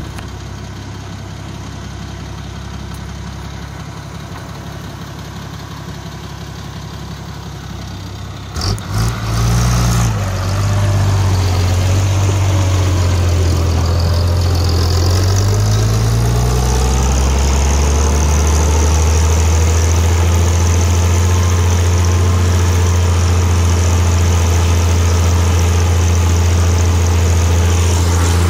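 Diesel engine of an IHC 956 XL tractor running. It idles steadily at first. About nine seconds in there are a few knocks, then the engine gets louder and its speed rises and dips before settling at a steady, higher speed.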